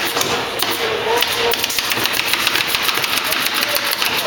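Pneumatic staple gun firing staples in quick succession through canvas into a wooden stretcher frame: a rapid string of sharp clicks, several a second, over steady workshop noise.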